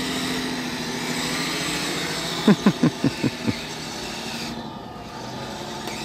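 Kyosho Blizzard SR electric RC snowcat driving over snow: a steady motor and gear whine with track noise. Two and a half seconds in there is a quick run of about seven short, sharp pitched sounds, and the whine eases off near the end as the machine slows.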